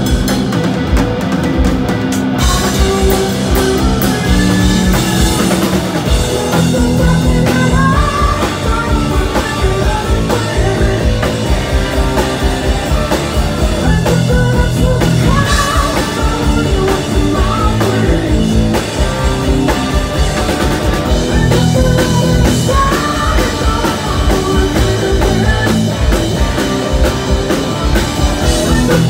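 Live rock power trio playing loud: distorted electric guitar, bass and a driving drum kit, with a male lead vocal singing over it from a few seconds in.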